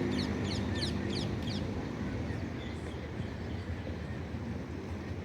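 Small birds chirping in a quick run of short, high, falling notes for the first second and a half, over a steady low rumble.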